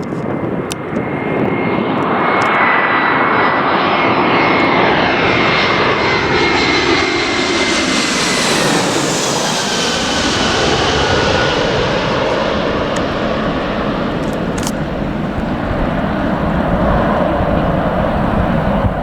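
Airliner on landing approach passing low overhead. Its engine noise builds to a peak about halfway through, and its whining tones drop in pitch as it goes by.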